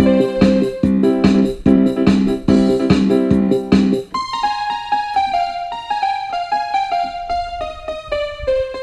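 Electronic trance-style music: keyboard chords over a steady, driving beat. About four seconds in, the beat drops out, leaving a single keyboard line whose held notes step down in pitch.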